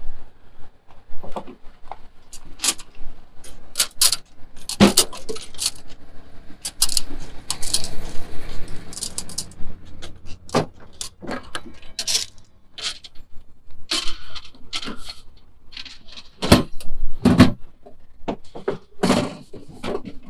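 Irregular knocks and clatter of a grandfather clock being handled and laid down in a pickup truck bed.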